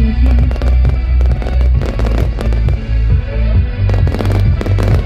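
Fireworks going off in quick succession, many sharp bangs and crackles, over loud music with a heavy pulsing bass.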